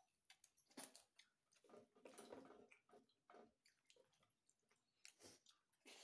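Faint close-up chewing of a mouthful of roti with matar paneer curry: irregular soft, wet mouth smacks and clicks, busiest about two seconds in.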